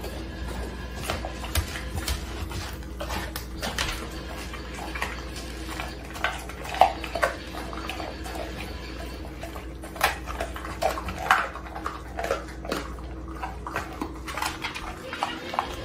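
Dog chewing and crunching a whole raw chicken, with irregular sharp crunches and snaps of bone, loudest about seven, ten and eleven seconds in.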